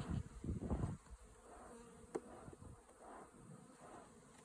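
Honeybees buzzing around an opened hive. A low rumble of handling noise fills the first second, and a sharp click comes about two seconds in.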